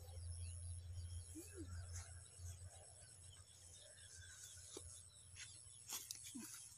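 Faint field ambience: a steady high-pitched insect drone and scattered small bird chirps over a low rumble, with a few light clicks in the second half.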